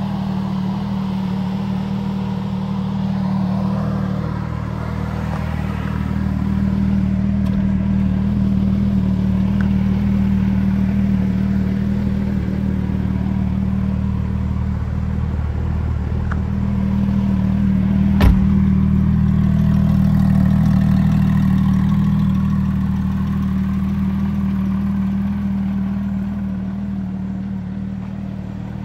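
2007 Porsche 911 GT3 RS's naturally aspirated 3.6-litre flat-six idling steadily, with a single sharp knock about eighteen seconds in.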